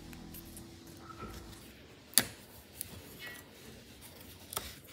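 Small laser-cut wooden parts of a DIY miniature kit being handled and fitted together: a few light clicks and taps, the sharpest about two seconds in.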